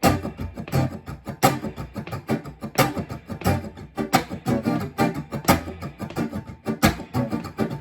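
Guitar strummed in a fast, even stream of strokes, with a stronger accented strum about every second and a half: sixteenth-note rhythm strumming with the accents on the backbeat, 2 and 4, in a funk style.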